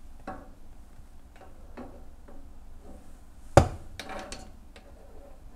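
Faint clicks and taps from handling a gas leak detector's probe around the gas fittings at the back of a range, with one sharp knock about three and a half seconds in. The detector gives no alarm; no leak is found at these fittings.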